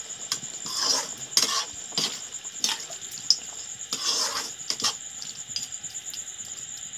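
A perforated metal ladle stirring and scraping against a metal kadhai of chicken curry thinned with water, in about eight strokes over the first five seconds, then quieter. A steady high-pitched whine sounds throughout.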